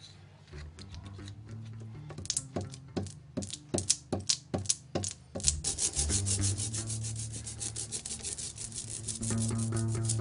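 Hand-held ink dabber rubbing etching ink across a warmed copper plate to work it into the etched lines. It starts as slow, uneven scraping strokes and about halfway through turns into quick, even back-and-forth scrubbing, several strokes a second.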